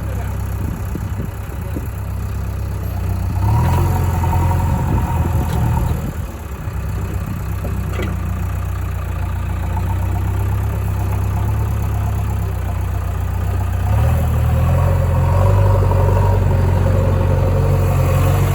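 JCB 3DX backhoe loader's diesel engine idling, revving up twice for a few seconds each time, about three and a half seconds in and again about fourteen seconds in.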